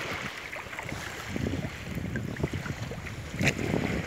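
Wind buffeting the microphone in gusts over small waves lapping in shallow water, with one brief sharp sound about three and a half seconds in.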